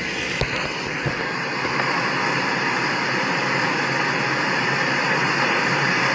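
Steady rushing noise inside a vehicle's cabin, with a couple of light knocks in the first second.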